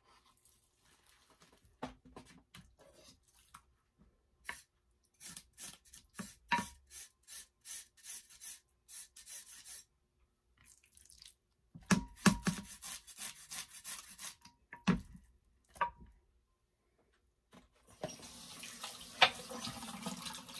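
Plastic packaging crinkling and tearing as a salmon fillet is unwrapped, with a few louder rustles and knocks around the middle. In the last few seconds a kitchen tap starts running water into the sink over the fish.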